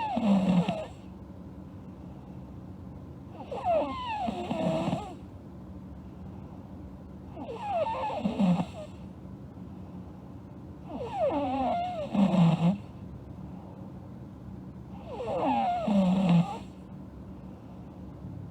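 A sleeping girl snoring in a steady rhythm, about one snore every four seconds, five in all. Each snore has a wavering, whistle-like pitch and ends on a lower falling tone.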